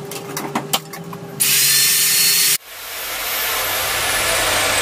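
Dekton DK115 mini tile-and-wood cutter's electric motor switched on, running unloaded with no blade fitted. A few handling clicks come first, then a loud rushing sound about a second and a half in, then a high whine that falls steadily in pitch as the motor spins.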